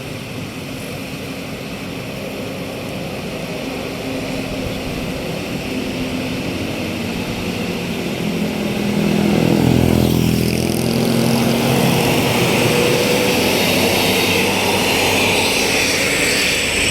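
A tour bus's diesel engine approaching and passing close, growing steadily louder and loudest about ten seconds in, then staying loud with a hiss of engine and road noise.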